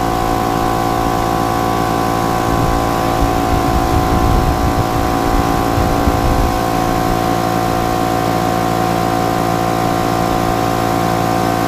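Small Craftsman air compressor running steadily on its first run after being plugged in, its motor and pump filling the tank.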